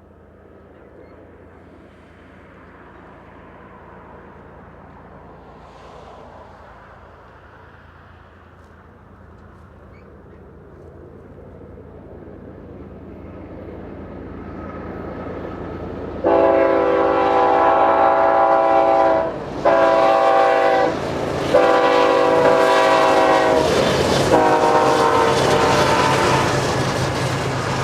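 Diesel freight locomotive approaching, its engine and rail noise growing steadily louder. About two-thirds of the way in its air horn sounds loudly: a long blast, a short one, then a longer one over the rumble of the passing train.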